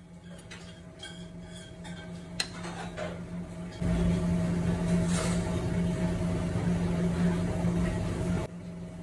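A metal spoon clinks and scrapes against a ceramic plate as sauce is spooned onto bread. About four seconds in a loud, steady low hum starts suddenly and stops abruptly near the end.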